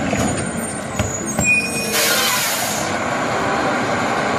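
Rear-loader garbage truck's engine running steadily, with a couple of knocks about a second in and a sharp hiss of air about two seconds in.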